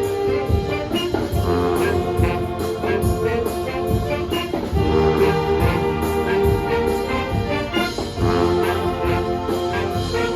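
Brass band playing a Manila sound pop medley: trumpets and trombones carry the melody over a steady drum beat.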